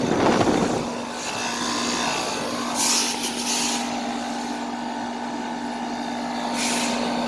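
1999 Carrier 38CKC 4-ton air conditioner condensing unit running: a steady compressor hum under the fan's airflow noise. The owner says the compressor sounds really bad, as if overheating and exhausted, though the unit is still cooling. A louder rush in the first second and short bursts of hiss about three seconds in and near the end.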